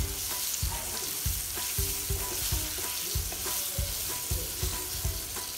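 Boiled amla pieces sizzling in hot mustard oil in a nonstick frying pan while a wooden spatula stirs them, a steady frying hiss with low knocks about twice a second.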